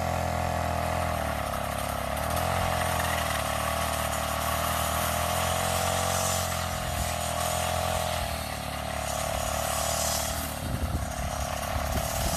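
Honda GX35 four-stroke brush cutter engine running at cutting speed with a round blade fitted, its pitch dipping and rising a few times under load. A few sharp knocks come near the end.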